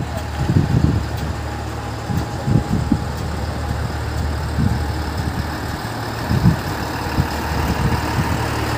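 Truck engine idling, a steady low hum, with short low rumbles coming and going every second or two.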